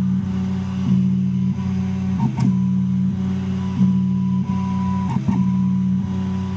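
Stepper motors of a RepRap Wallace 3D printer whining at steady pitches as the hot end traces the square walls of a calibration cube. The tones break and shift about every second and a half with a short clatter as the head turns each corner, then the same pattern repeats.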